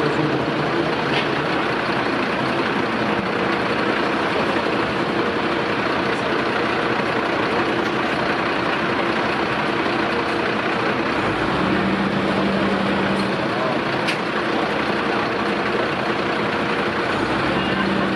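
Fire truck's diesel engine running steadily, a loud, even rumble and hiss, most likely the engine of the Magirus turntable ladder. A low, steady hum joins briefly about twelve seconds in and again near the end.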